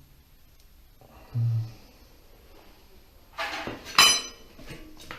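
Metal tools clanking: a short low thud about a second and a half in, then several sharp ringing metallic strikes from about three and a half seconds on, the loudest near four seconds.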